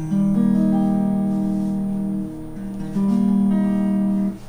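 JamMate electric guitar strumming chords that ring on, with a new chord struck about three seconds in.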